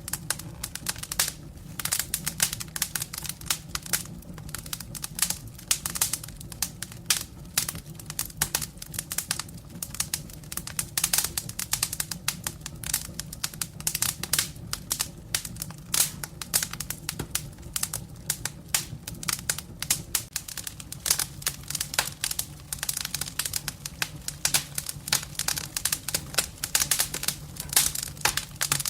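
Firewood burning in a fireplace, crackling with dense, irregular pops and snaps over a low steady rumble.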